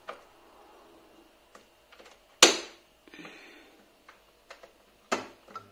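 Switches on a Candy cooker hood's control panel clicking as they are pressed, with two sharp, loud clicks about two and a half seconds apart among lighter ticks. A low steady hum starts right at the end.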